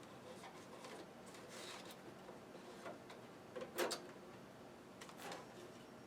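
A few scattered light clicks and a sharper knock about three and a half seconds in, over a faint steady hum.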